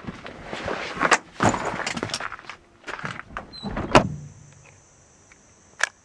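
Pickup truck door handled and opened, with rustling and knocks, then shut with a loud thunk about four seconds in. After that a faint steady high hiss and one sharp click near the end.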